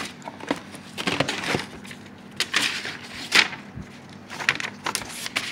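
Rummaging through papers and belongings in a storage tote: irregular rustling and shuffling with soft knocks.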